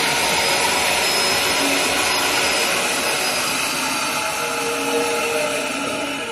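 A motor-driven workshop machine, such as a shop vacuum or power tool, running steadily: a loud, even rushing hiss with a faint steady whine in it.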